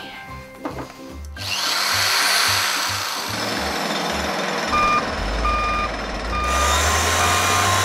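A power tool starts about a second and a half in and runs loudly and harshly. In the second half it is joined by a low rumble and a row of short, evenly spaced beeps. Background music with a steady low beat plays throughout.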